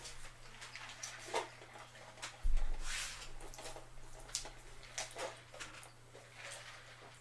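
Drinking through a straw from a paper fast-food cup: a string of short sucking and slurping sounds, with one low thump about two and a half seconds in.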